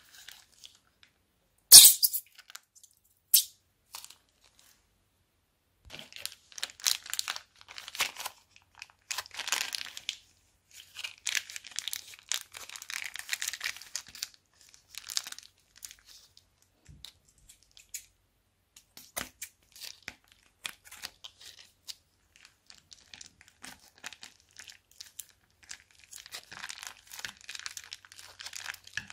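Thin plastic bag crinkling and tearing as it is crumpled and peeled open by hand, in stretches of dense crackle with scattered ticks between. Two sharp clicks stand out loudest near the start.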